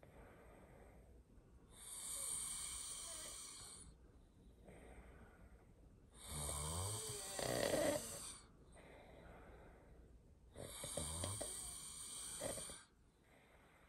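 A person snoring loudly in their sleep: three long snoring breaths about four seconds apart, the middle one the loudest.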